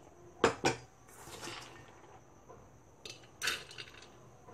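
Kitchen utensils clinking against an aluminium pressure cooker pot: two sharp metallic knocks about half a second in, then a short clatter about three and a half seconds in.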